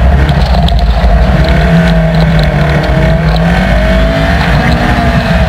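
Datsun 1200 rally car's SR20VE four-cylinder engine pulling hard at high revs under acceleration, heard from inside the cabin, its pitch rising through the middle, over the noise of tyres on gravel.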